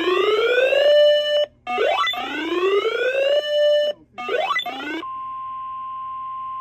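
Electronic alert sweeps: two long rising whoops, each levelling off on a held tone, then a shorter third. About five seconds in, a steady single-pitch weather-radio warning alarm tone comes on, the alert tone that comes before a severe thunderstorm warning broadcast.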